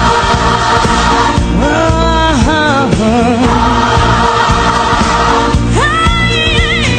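Gospel-style song: a choir and band hold sustained chords, and a lead voice twice swoops up into a long phrase with heavy vibrato.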